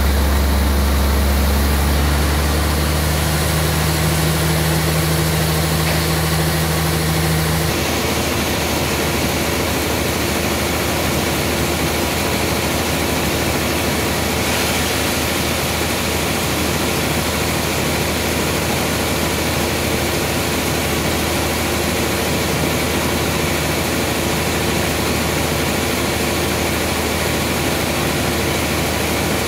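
Large sawmill log band saw running steadily while sawing a trembesi (rain tree) log: a dense, continuous machine drone with a strong low hum. About eight seconds in, one lower tone drops out and the sound shifts slightly, then holds steady.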